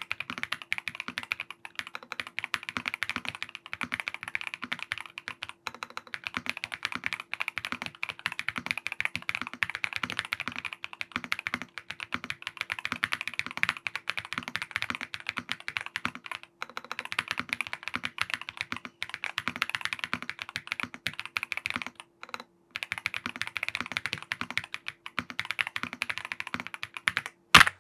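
Fast, continuous typing on a Yunzii AL65 gasket-mount aluminium mechanical keyboard with Yunzii Milk V2 linear switches, giving a soft 'creamy' clacking. Typing breaks off briefly a couple of times partway through.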